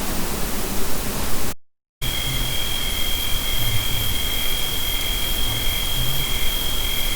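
Loud steady hiss of a heavily amplified night recording in the forest, broken by a brief cut to silence about a second and a half in. After the cut, a steady high-pitched tone and a lower, regularly pulsing tone sound under the hiss.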